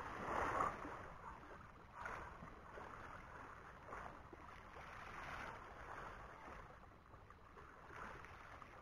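Faint sea waves washing and lapping against the shore, with some wind, the wash swelling and fading every second or two.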